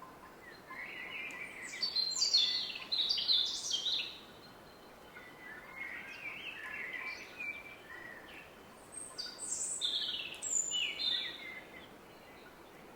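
A songbird singing two long phrases of quick notes that step up and down in pitch, the second beginning about a second after the first ends, over a steady distant river roar.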